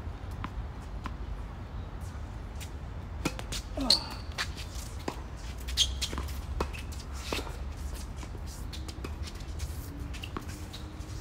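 Tennis balls being struck by rackets and bouncing on a hard court during a serve and rally, as sharp pops at irregular intervals over a low steady rumble. A brief voice sounds with one of the loudest pops, about four seconds in.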